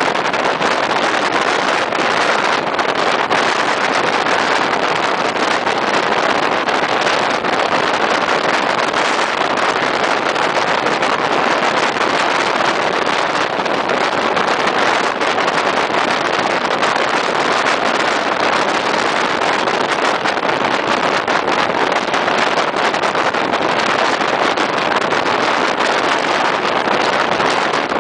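Steady, loud rushing of wind and running noise from a moving passenger train, heard at an open carriage window while the train travels at speed.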